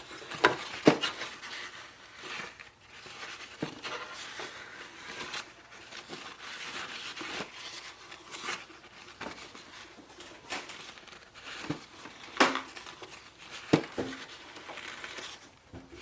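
Damp tissue paper rubbing and crinkling as it wipes an Epson EcoTank print head to unclog its nozzles, with a few sharp taps along the way.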